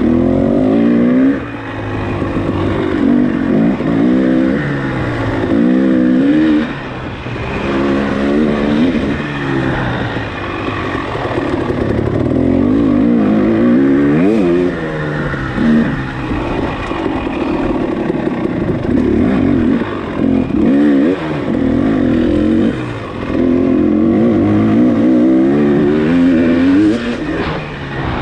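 Off-road motorcycle engine at racing speed, revving up and dropping off again and again as the rider accelerates, shifts and backs off.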